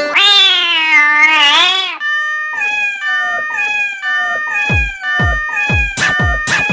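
A wavering, meow-like cry for about two seconds, then electronic meme music with repeating falling notes. A kick drum joins about four and a half seconds in.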